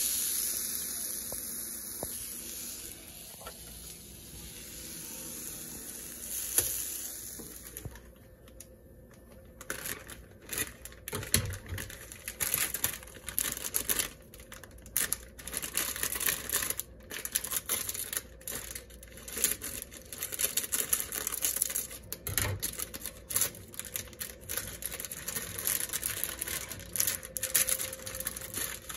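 A steady hiss for the first several seconds. Then the plastic wrapper of an instant noodle packet and its seasoning sachet crinkle and tear as they are handled and opened, with irregular crackles to the end.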